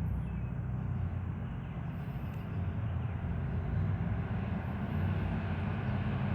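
Steady low rumble with a hum, like an engine running.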